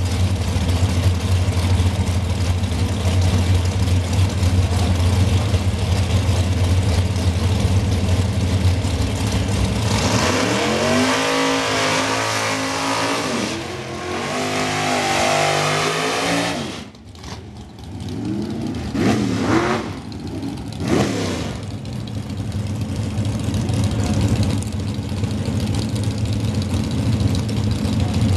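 Doorslammer drag cars' race engines idling with a lumpy beat, then one car does a burnout: the engine revs high and wavers for about seven seconds over the hiss of the spinning rear tyres, cuts off suddenly, and is blipped a few times before settling back to idle.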